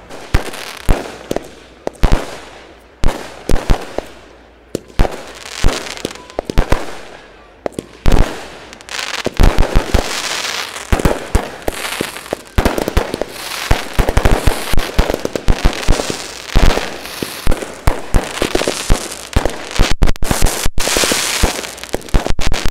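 Fireworks display: aerial shells bursting one after another in loud bangs. From about nine seconds in, the bangs come thicker over a continuous crackle.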